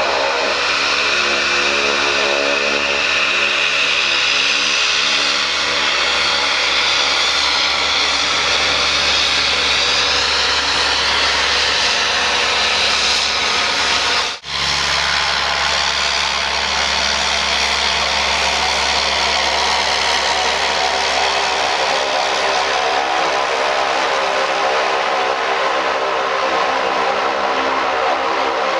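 Fairchild Swearingen Metro II's Garrett TPE331 turboprops running as the aircraft taxis at close range: a steady propeller drone under a loud, high-pitched turbine whine. The whine's pitch shifts about a third of the way in, and the sound cuts out for a moment about halfway through before resuming.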